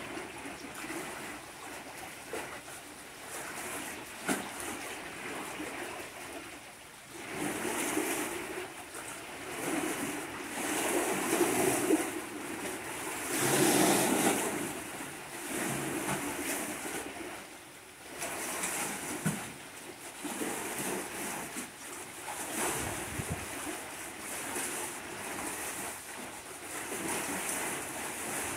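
Small sea waves washing and lapping around concrete pier pilings in shallow water, the wash rising and falling in swells every few seconds, loudest about halfway through.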